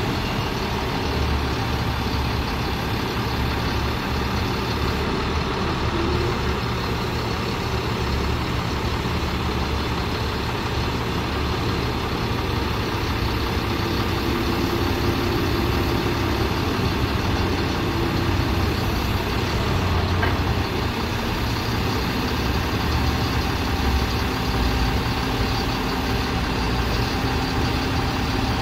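Ford F750 crane truck's engine running steadily to power the IMT knuckle-boom crane's hydraulics as the boom is worked. A faint tone comes and goes in the middle.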